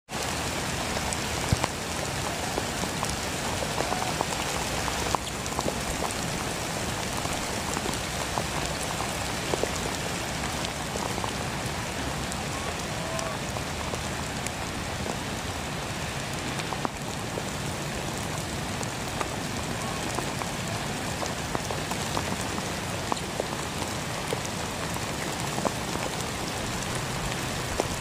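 Heavy rain falling steadily on puddles, mud and grass, with scattered sharp ticks of drops.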